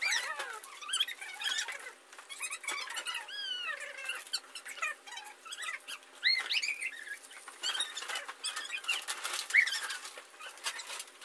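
Squeaky, chipmunk-like chattering of children's voices sped up, with many quick high rising and falling squeals and no low end.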